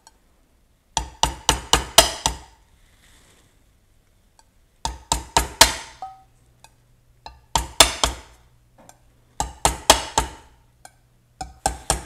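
A hammer tapping a small finishing nail through a metal mason jar lid to punch feeder holes. The strikes come in quick bursts of five or six light, ringing taps, a burst every two to three seconds. A faint steady low hum joins about four seconds in.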